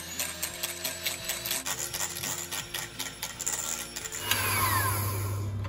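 Electric hand mixer beating a runny yogurt, sugar and oil batter in a glass bowl, its beaters ticking and scraping against the glass. About four seconds in, the clicking gives way to a steady low hum.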